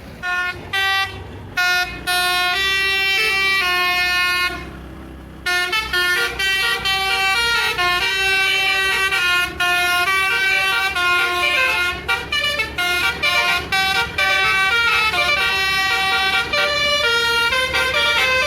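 Bus basuri telolet horn, a musical air horn, playing a melody. It opens with a few short blasts and a long held note, breaks off for a moment about four and a half seconds in, then plays a quick run of changing notes.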